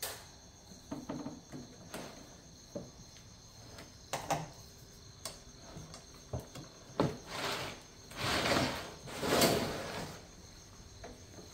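Metal spreader legs being fitted into a collapsible crab pot's hoop frame: scattered clicks and knocks of metal on metal, then a few seconds of scraping and rustling of the frame and net in the second half. A faint, steady high-pitched ringing runs underneath.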